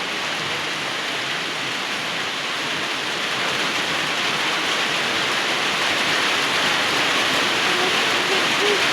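Steady heavy rain falling, growing a little louder in the second half.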